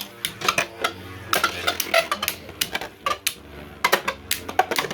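Two 3D-printed plastic beyblades spinning and clashing in a stadium: rapid, irregular sharp plastic clacks over a low spinning whir.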